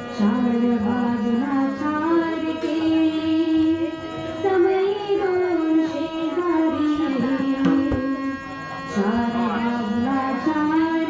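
Devotional bhajan music: a harmonium plays a melody in held, stepping notes over regular tabla-like hand-drum strokes.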